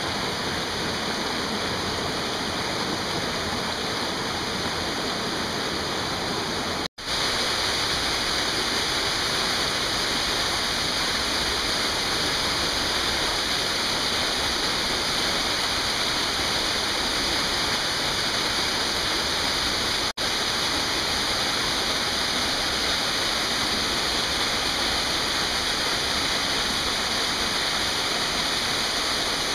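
Steady rush of a mountain stream and waterfalls pouring over rocks. It breaks off for an instant twice, about seven and twenty seconds in, and comes back a little louder and hissier after the first break.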